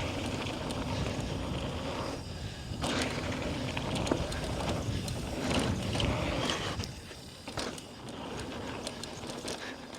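Mountain bike riding down a dirt trail, heard from a mic on the rider: the tyres rumble over the ground and the bike rattles with irregular knocks. It gets a little quieter about seven seconds in.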